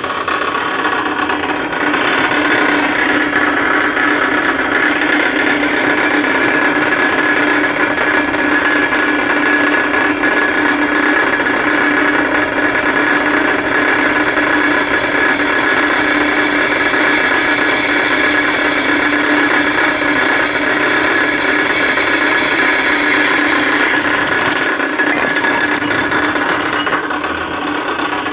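Metal-cutting bandsaw running steadily, its blade cutting through steel stock. Near the end the sound changes and a brief high hiss comes in.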